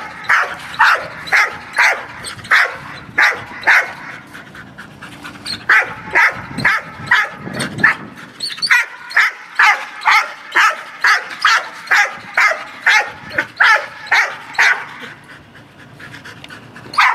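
Dog barking and yelping in quick, high calls, about two or three a second, with a short lull about four seconds in and easing off near the end. It is the dog "talking to the ball": vocalising at a ball it is not yet allowed to fetch while holding heel position in a circle.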